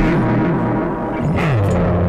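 Electric guitar played through an amplifier, with notes sliding down and back up in pitch.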